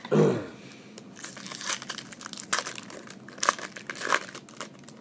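Trading-card pack wrapper crinkling and tearing, with cards being handled: a run of sharp crackles. A brief falling-pitch sound right at the start is the loudest moment.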